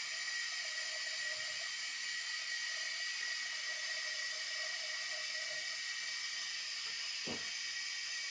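Steady hiss with a faint wavering tone underneath, broken by one short thump about seven seconds in.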